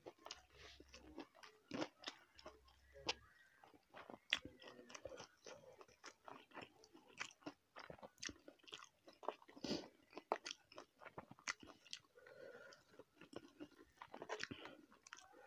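Close-miked eating sounds: a person chewing and biting food with many irregular small crunches and wet mouth clicks.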